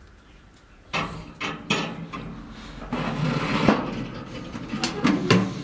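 Light metallic clicks and rattles of lead jig heads being hung on a toaster oven's wire rack and the rack being handled. They start about a second in, with a sharper click about three and a half seconds in.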